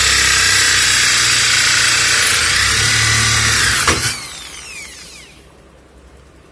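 Electric drill boring a hole through a wooden block, running steadily. About four seconds in there is a click, then the motor spins down with a falling whine and goes quiet.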